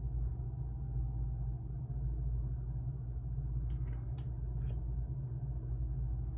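Steady low hum and rumble, with three short clicks about halfway through.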